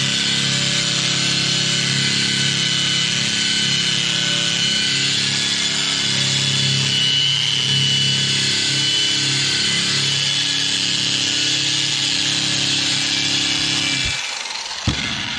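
Drum sander running steadily, grinding old powder coat and paint off sheet metal down toward bare metal. Near the end it shuts off and winds down, followed by a single short knock.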